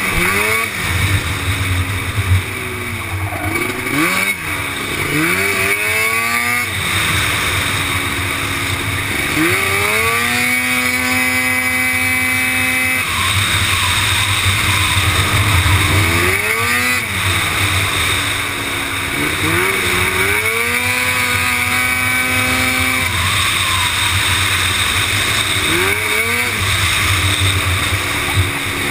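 Racing quad's engine heard from an onboard camera, repeatedly revving up in rising sweeps through the gears and dropping back for corners, with a stretch held at high revs along a straight. A steady rush of wind runs underneath.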